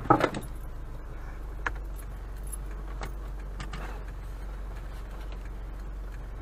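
Inside a car that has just slid to a stop against a snowbank: the engine idles with a steady low hum, and a few faint light clicks and jingles sound over it. A short noise right at the start is the tail of the slide.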